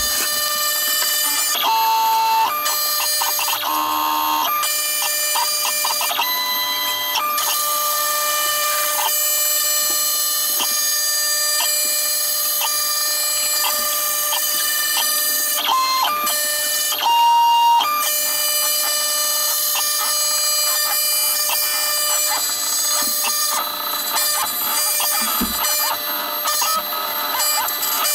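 CNC router milling a wooden knife handle scale with an end mill, the audio sped up about six times, so the spindle and cutting noise comes out as a high, steady drone of several tones with a few brief changes in pitch.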